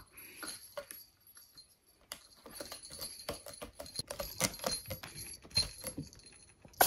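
Ragdoll kitten batting and grabbing at a hanging ball toy on a cat tree, making irregular light knocks and clicks. Near the end a short sharp burst, the kitten sneezing.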